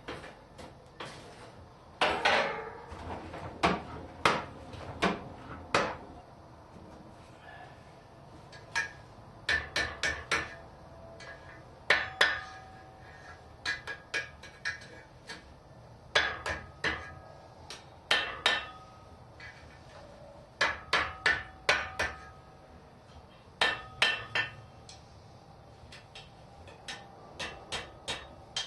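Hand hammer striking a hot 3/8-inch mild steel rod over the anvil horn to bend the curve of a hook, in quick groups of two to five blows with short pauses between, the strikes ringing metallically.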